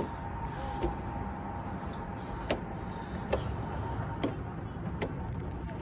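Footsteps climbing wooden stairs: sharp knocks of shoes on the treads, about one a second, six in all with one short pause, over steady low background noise.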